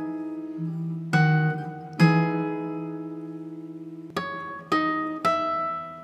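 Solo guitar played slowly: plucked notes and chords left to ring out and fade, then three quick notes climbing in pitch near the end.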